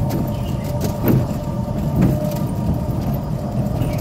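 Running and rattling noise of a moving open tour vehicle on a rough path, with two louder jolts about a second and two seconds in.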